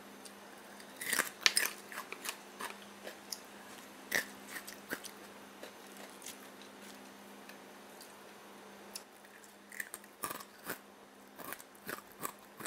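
Crisp crunching and crackling of deep-fried food, in irregular bursts of sharp crackles, busy for the first few seconds, quieter in the middle, and busy again near the end.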